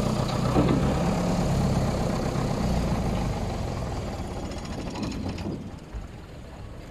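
Motor vehicle engine running with a low, steady hum that fades gradually as the vehicle draws away.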